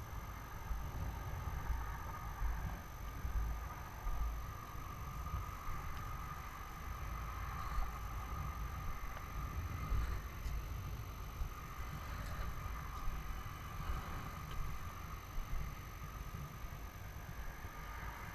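Wind buffeting an action camera's microphone, an uneven gusty rumble with a faint steady hiss above it.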